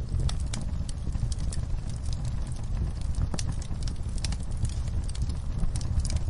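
Wood fire burning in a fireplace: a steady low rumble with irregular sharp crackles and pops, a few each second.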